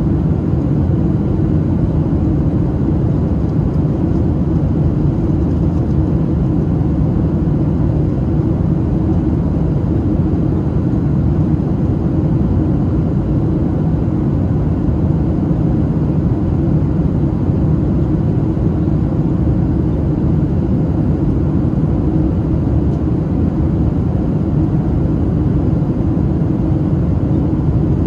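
Steady cabin noise inside a Boeing 737-700 in flight on approach: the even, low rush of airflow and its CFM56-7B turbofan engines. There are no changes in pitch or level.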